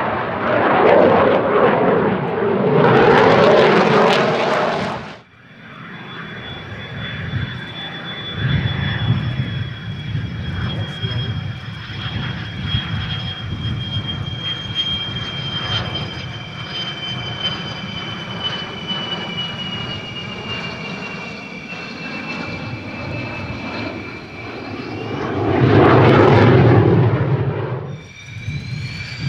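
An F-16AM's Pratt & Whitney F100 jet engine during a display. Loud jet noise cuts off abruptly about five seconds in. A steady high whine then sinks slowly in pitch over a low rumble, before a loud pass swells about 25 seconds in and cuts off suddenly near the end.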